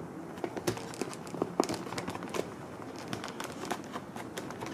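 Hex key turning small bolts through the plywood mounts into the tail of a foam RC plane: a run of light, irregular clicks and ticks as the wrench is worked and the bolt is snugged up.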